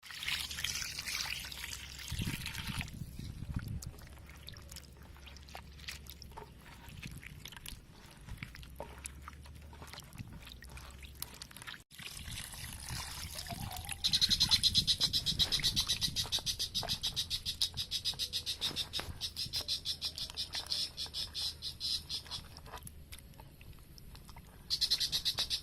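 A frog calling in a fast, high-pitched pulsing trill that starts about halfway through, runs for several seconds, and comes back briefly at the very end. Scattered light knocks and clicks are heard around it.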